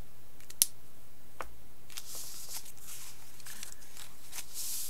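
Folded colored-paper pieces being handled and slid on a table, giving soft paper rustles about two seconds in and again near the end. A single sharp click comes under a second in.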